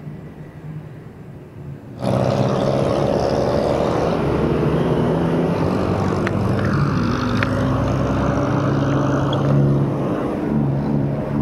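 A motor vehicle engine running close by, loud and steady with slight shifts in pitch, cutting in suddenly about two seconds in after quieter road noise.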